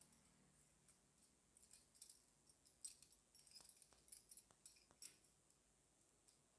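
Faint metallic clicks and clinks of keys swinging out and folding back in an aluminium KeySmart key organizer, a quick irregular run of small ticks in the middle few seconds.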